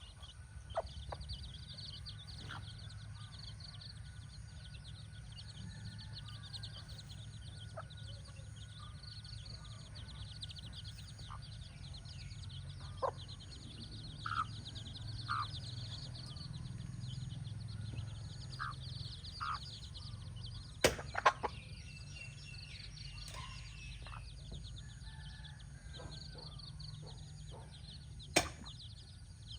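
Chicks peeping continuously in a high, busy chorus, with a hen's occasional short clucks. A few sharp knocks stand out, a pair about two-thirds through and one near the end, over a low steady rumble.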